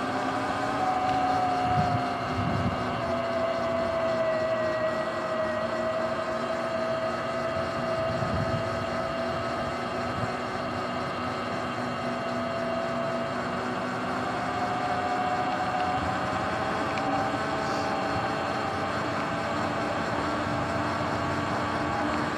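Sur-Ron electric dirt bike riding at steady speed: a high motor and drivetrain whine that drifts slightly up and down in pitch as the speed changes, over a rush of tyre and wind noise, with a few low thumps.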